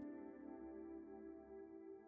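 Faint ambient background music: a soft held chord of steady tones, slowly fading.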